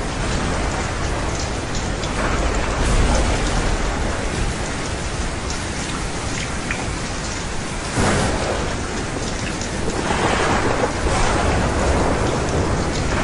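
Steady rain in a thunderstorm, with a sudden clap of thunder about eight seconds in and heavier, louder noise for the last few seconds.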